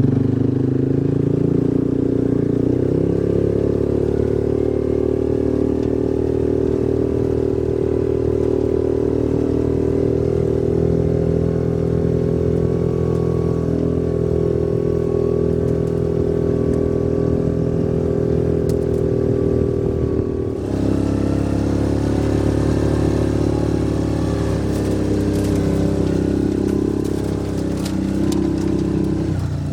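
Engine of a Rhino side-by-side utility vehicle running steadily while driving, with a brief dip about 20 seconds in, after which the engine note shifts.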